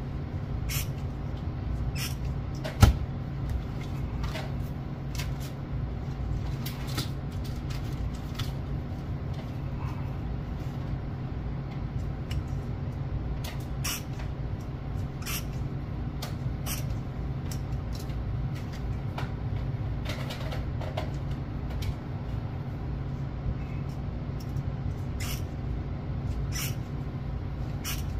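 Hand crimping tool squeezing metal sleeves onto coated leader cable: sharp clicks at irregular intervals, one much louder snap about three seconds in, over a steady low hum.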